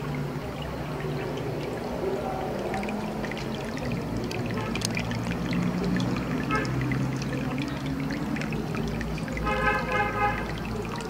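Water trickling and pouring steadily in a turtle aquarium, over a low steady hum.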